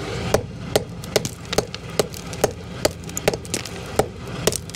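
Claw hammer chipping a thin layer of stucco off a wall: a quick, irregular series of sharp taps, about three a second.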